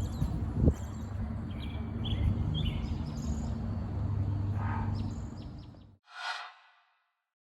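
Outdoor background of birds chirping over a steady low rumble, which cuts off abruptly about six seconds in; a short burst of noise follows, then silence.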